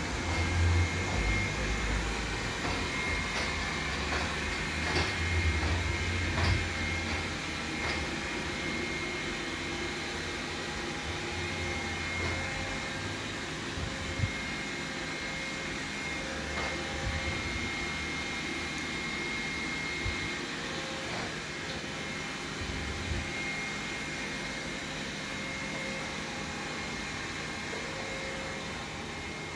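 Xiaomi robot vacuum running, its motor and brushes making a steady whir with a thin high whine. Low rumbles and a few short knocks come in the first several seconds before it settles into a steadier run.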